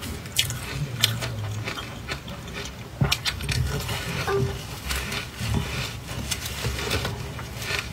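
Irregular crunching and crackling of a close-miked mouth biting and chewing soft, frosty ice coated in matcha powder, with a few sharper cracks among the crunches.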